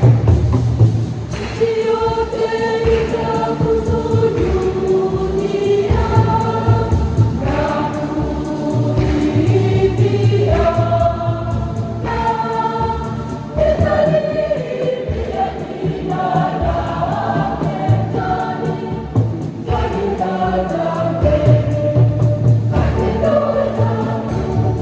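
Church choir singing a joyful Swahili hymn of praise, many voices together in a steady, loud flow.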